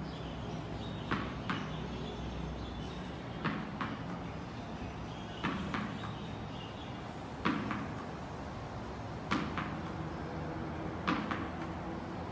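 A soft tennis ball knocking against a wall and a concrete floor: six pairs of sharp knocks, the two in each pair less than half a second apart, repeating about every two seconds.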